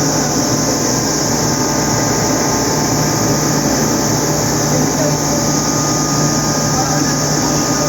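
Freshly serviced Kaeser rotary screw air compressor running steadily under power, a constant loud machine drone with a low hum and a high hiss.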